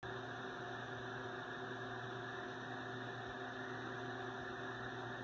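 Steady low electrical hum over a faint hiss.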